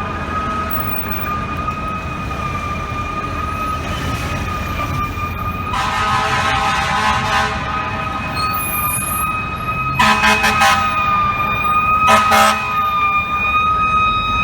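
Fire truck siren holding a steady high pitch, with the truck's air horns blasting three times over it: a long blast about six seconds in, then two shorter blasts about ten and twelve seconds in.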